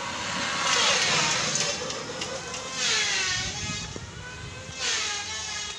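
A motor vehicle engine rising and falling in pitch in repeated swells, about one every two seconds.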